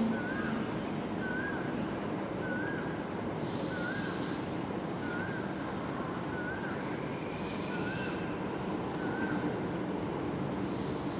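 A steady low rumble of gusty wind. Over it, a bird repeats a short, wavy whistled note about once a second.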